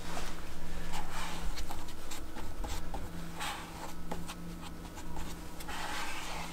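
Plastic spreader scraping and folding polyester body-filler putty on a mixing board, mixing in the hardener paste, in several short strokes. A steady low hum runs underneath.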